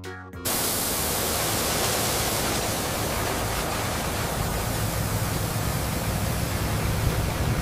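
Grain auger running: a steady hiss with a low hum underneath, starting suddenly just after the beginning.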